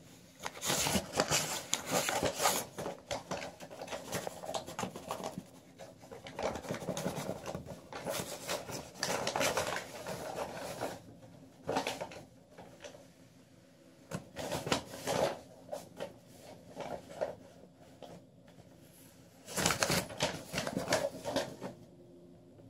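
A sheet of junk-mail paper being waggled and slid under a door over carpet, rustling and scraping in irregular bursts with pauses between.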